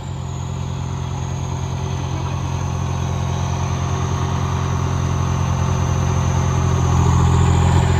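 Diesel tractor engine running at a steady speed, growing gradually louder, with a further rise near the end.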